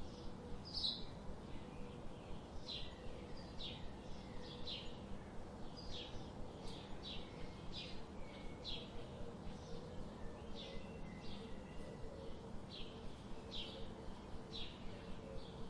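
Small birds chirping, short high chirps coming about twice a second without pause, over a steady low background noise.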